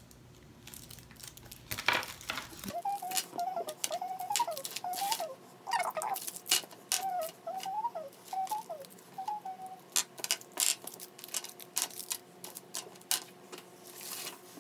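Rapid clicking and crinkling of plastic-wrapped candies being picked out and pushed across a wooden tabletop, with a high, wavering pitched sound like a voice humming running from about three seconds in to nearly ten.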